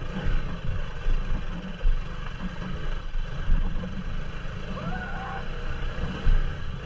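Bajaj Pulsar NS200 motorcycle's single-cylinder engine running at low speed over a rough, rocky dirt track, with an uneven low rumble of wind and bumps on the microphone.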